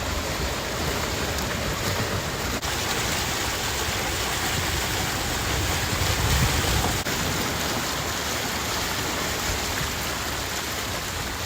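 Steady rushing noise, even and unbroken, heaviest in the low end.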